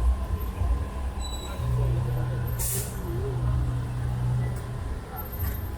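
Street traffic: a large vehicle's engine runs with a steady low hum over a low rumble, and a brief sharp hiss comes about two and a half seconds in.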